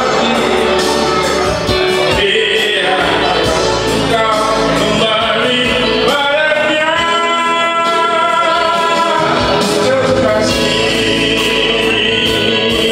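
A man singing an Indonesian love ballad in Indonesian into a microphone over amplified backing music, holding one long note in the middle.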